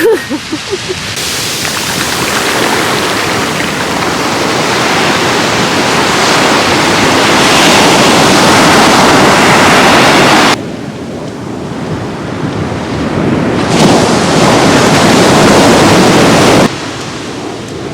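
Ocean surf washing on the beach, with wind buffeting the microphone. The loud rush drops away abruptly twice, then comes back in between.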